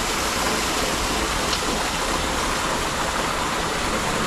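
Steady rushing of running water, an even wash without change.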